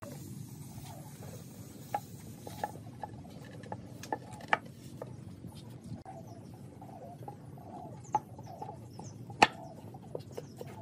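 Solid-wood stool top and frame knocking together as the top is handled and fitted onto the frame: scattered light wooden taps and clicks, with one sharp knock about three-quarters of the way through.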